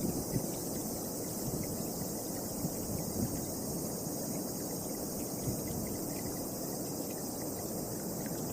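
Gusty wind blowing against the microphone, under a steady high-pitched chorus of insects, likely crickets.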